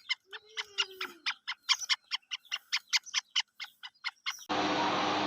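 Partridges (teetar) calling: a fast run of short, sharp notes, about six a second. About four and a half seconds in, the calls cut off abruptly to a steady hum.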